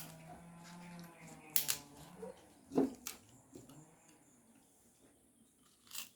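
Eating sounds: scattered sharp clicks and chewing crunches, the loudest about three seconds in. A steady low hum runs under the first two seconds and then stops.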